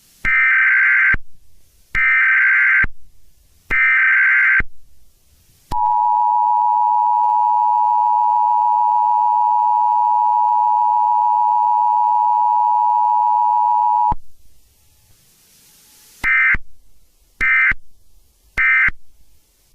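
Emergency Alert System tones: three loud, harsh data bursts of the SAME header, then the steady two-note EAS attention signal held for about eight seconds, then three much shorter data bursts near the end.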